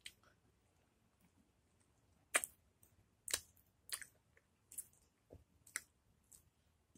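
Wet mouth clicks and smacks of someone chewing a sour lemon slice with her mouth closed: a string of sharp, irregular clicks, starting about two seconds in.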